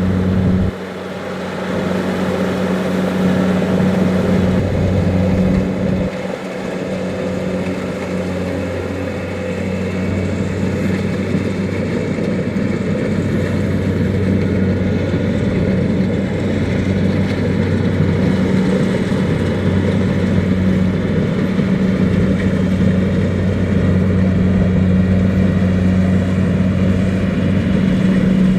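Kubota DC-70 Plus rice combine harvester running steadily, its diesel engine making a continuous drone with a steady low hum. The level dips briefly about a second in and again around six seconds.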